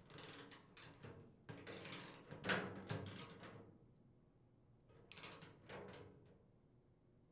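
Socket ratchet clicking in three short runs of rapid clicks as a nut is tightened on a bolt, with a wrench holding the other end. The middle run is the loudest.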